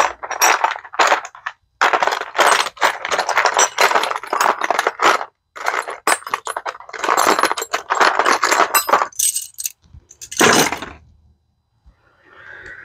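Metal sockets and hand tools clinking and rattling against each other and a plastic case as they are picked out and sorted, in quick clusters of clinks with short pauses, stopping about two seconds before the end.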